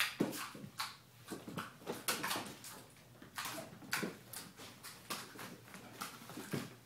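Irregular taps, thumps and scuffs on a hardwood floor, several a second, as kittens jump, land and scramble and a person in socks steps and shuffles among them.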